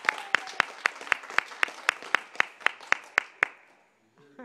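Applause from a small group: one pair of hands close by claps steadily about four times a second over the wash of others' clapping, dying away about three and a half seconds in.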